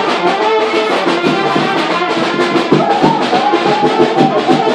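Serbian brass band (trubači) music: trumpets and other brass playing a lively tune over a regular drum beat.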